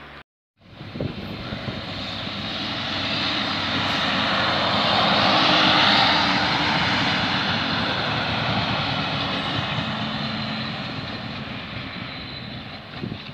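Diesel multiple unit railcar passing close by. Its engine and wheel noise build up, peak about six seconds in as it goes past, then fade as it draws away, over a low rumble of wheels on the track.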